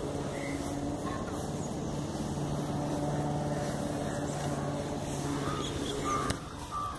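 An engine running steadily with a low, even hum, stopping about six seconds in.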